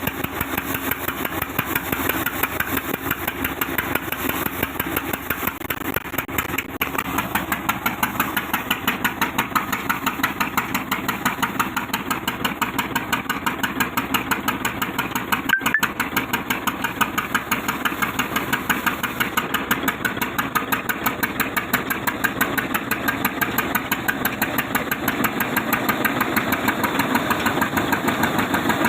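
Sawmill machine running steadily, with a rapid, even pulsing beat.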